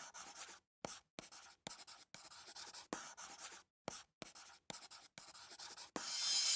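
Pen scratching on paper as a writing sound effect: about ten short, scratchy strokes with brief silences between them. Near the end a rising whoosh swells up.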